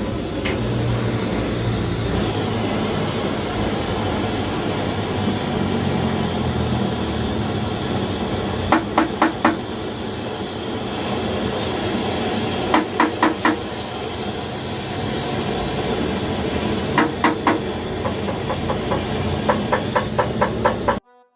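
A hammer tapping on metal in quick runs of four or five blows, about five a second, several times over, against a steady rushing background noise.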